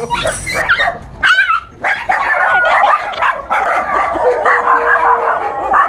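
Dogs barking repeatedly in alarm at a fake toy tiger, with a brief lull about a second and a half in and then near-continuous barking.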